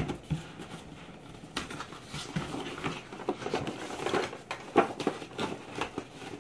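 Cardboard toy box being opened and handled by hand: a run of short scrapes, taps and rustles of the cardboard flap and packaging.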